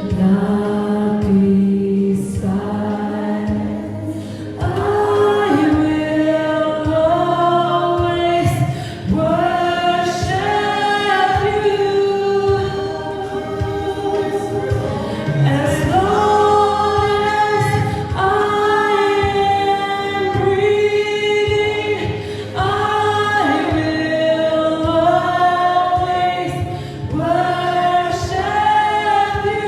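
Worship music: a group of voices singing a gospel-style Christian song, with long held notes.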